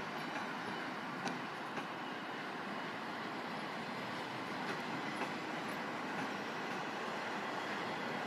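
Snälltåget passenger coaches rolling past on the rails: a steady rumble of wheels on track with a few faint clicks.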